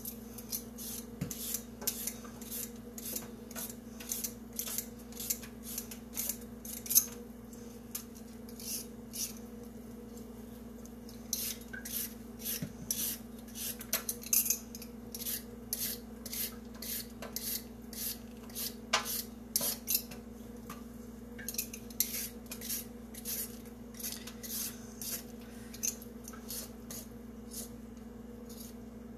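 Raw carrots being peeled with a hand vegetable peeler: quick, repeated scraping strokes, a couple a second with short pauses, over a steady low hum.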